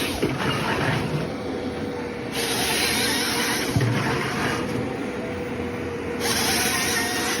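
Motorized cutting machinery running steadily, with two long bursts of harsh cutting noise: one near the middle and one near the end.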